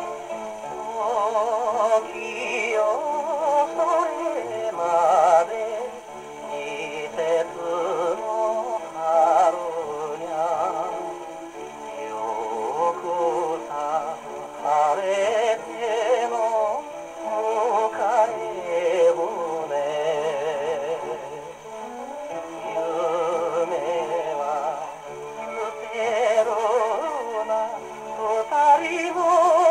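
A 78 rpm shellac record playing on a wind-up acoustic gramophone with a soft-tone steel needle: a male voice singing with a wavering vibrato over instrumental accompaniment, the sound thin and narrow in range.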